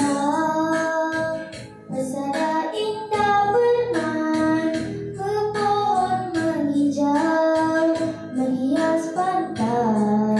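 A young girl singing a patriotic song into a microphone over instrumental accompaniment, the melody rising and falling with held notes.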